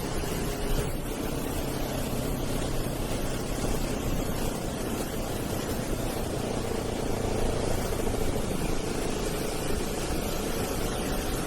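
Motorcycle engine running steadily while riding, under a constant rush of wind noise over the microphone.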